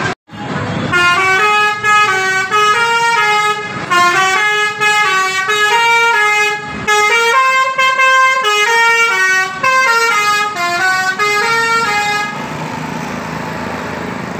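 Basuri telolet horn on a bus playing a melody: a fast run of stepped horn notes that rise and fall for about eleven seconds, then stops, leaving traffic noise.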